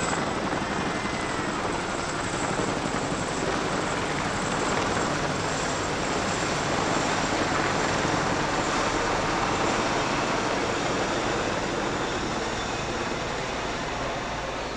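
Formation of military helicopters flying overhead: a CH-47 Chinook tandem-rotor helicopter slinging a large flag, with two escort helicopters. Steady rotor and engine noise grows louder as they pass overhead and eases a little near the end.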